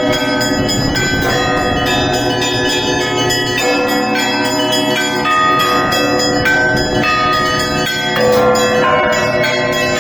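Russian Orthodox cathedral bells rung in a festive Easter peal (zvon). Many bells are struck in quick, overlapping succession, and their tones ring on with no break.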